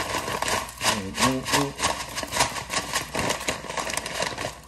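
Dry red lentils (masoor dal) poured from a plastic bag into a plastic container, a dense pattering rattle of grains hitting plastic, with the bag crinkling as it is tipped.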